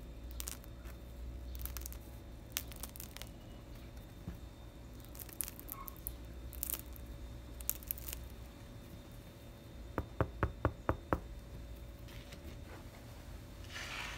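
Crisp crust of a freshly baked sourdough loaf crackling and clicking as hands turn and press it, with a quick run of about six sharp taps around ten seconds in and a short scratchy rustle near the end.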